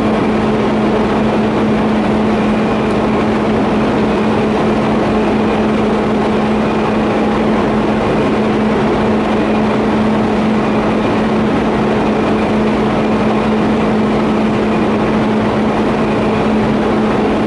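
TIG welding on steel pipe fittings: a steady, unbroken buzzing hiss with a constant low hum.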